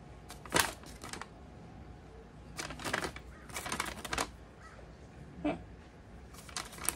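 Paper and cloth being handled: intermittent crinkling and rustling from a rolled piece of Aida cross-stitch fabric and its Charles Craft paper insert, in several short bursts.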